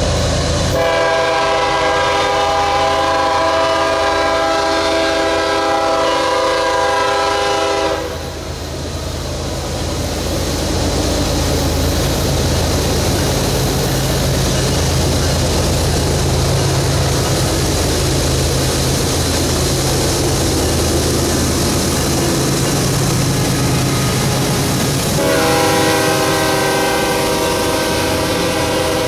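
Pair of GE diesel locomotives on a loaded coal train sounding their multi-chime air horn in one long blast of about seven seconds, then running past with a steady low engine drone and wheel noise. A second horn blast of about four seconds begins near the end as the loaded coal hoppers roll by.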